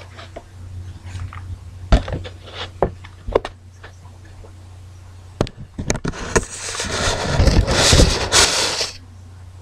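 Clear plastic container handled right up against the microphone: several sharp knocks, then about three seconds of loud scraping and rustling as the container rubs close to it.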